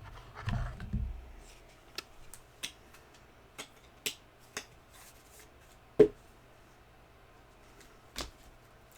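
Scattered light clicks and taps from hands handling trading cards and packaging on a table, with a few dull thuds early on and one sharper knock about six seconds in.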